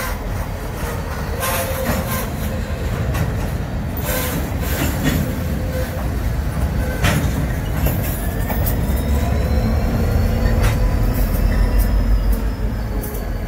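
Union Pacific freight train rolling past at close range: a steady low rumble with irregular clicks and knocks from the wheels on the rails, and a faint high wheel squeal in the second half.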